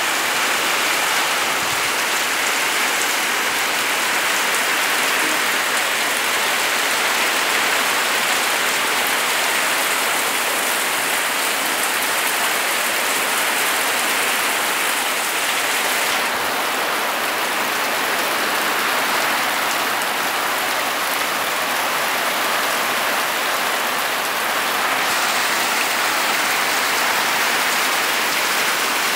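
Monsoon rain falling steadily on a corrugated metal sheet roof, a dense, even patter.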